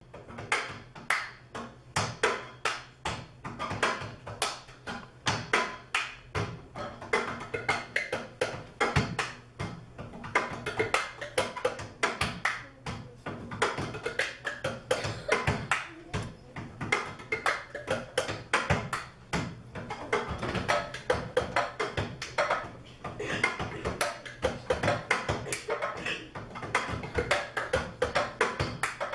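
Percussion ensemble playing a fast, steady rhythm of dry taps and knocks on cups, struck and tapped on a hard surface.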